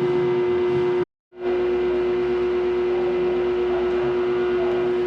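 Steady machinery drone in a ship's engine room, with one strong, unchanging hum tone over a rushing noise. It cuts out abruptly for a moment just after one second in, then carries on as before.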